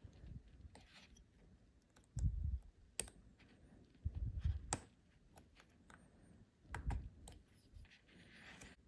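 Scattered small, sharp metal clicks and taps from a stainless steel watch bracelet, its pin and a small fitting tool being worked at as the bracelet is fitted to the watch lugs, with a few dull handling thumps.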